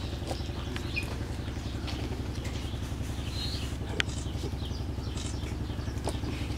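Steady low drone of a motor running, pulsing evenly, with faint short high chirps over it and a single sharp click about four seconds in.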